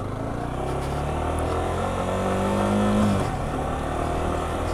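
Yamaha R15 V4 motorcycle's single-cylinder engine running under way. Its pitch rises gently and then drops back about three seconds in.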